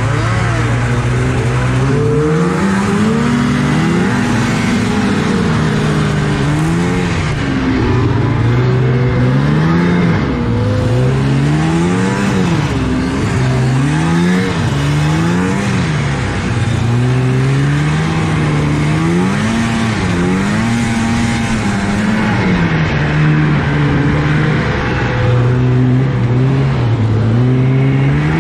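1983 Yamaha SS 440 two-stroke snowmobile engine, heard from on board. It runs at a steady note at first, then about a second and a half in revs up. After that its pitch rises and falls over and over as the throttle is opened and closed through the race course.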